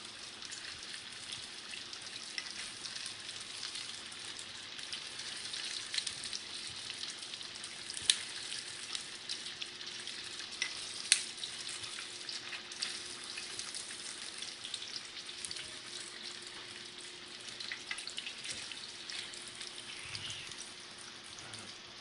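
Chicken pieces deep-frying in hot oil: a steady sizzle full of small crackling pops, with two sharper clicks about 8 and 11 seconds in.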